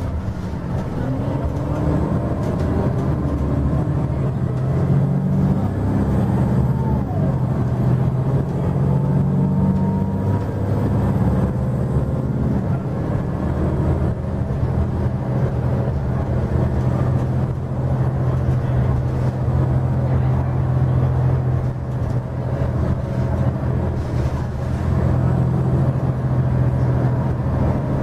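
Heard from inside a Nova LFS city bus: its Cummins ISL straight-six diesel and ZF six-speed automatic running under way, a deep low drone. The engine note changes in steps over the first dozen seconds, runs steady through the middle and rises again near the end.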